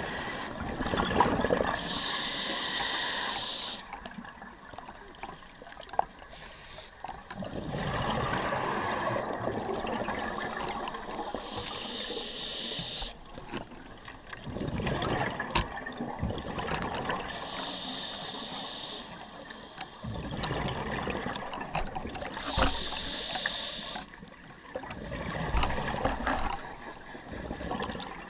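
Scuba regulator breathing underwater: a hiss on each inhale and a spell of bubbling on each exhale, in a slow repeating rhythm.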